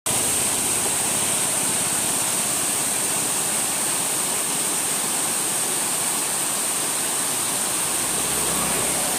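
Forest waterfall and rocky stream rushing, a steady unbroken wash of water noise, with a thin steady high hiss above it.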